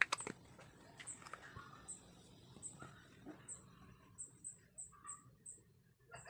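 Short, thin, high chirps from a small animal, repeating about once a second and then quickening before they stop. A few sharp clicks at the start.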